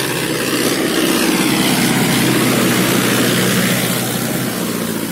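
Tractor's diesel engine running under load as it pulls a plough through a harvested paddy field. It grows louder about a second in as it passes close by, then eases slightly near the end.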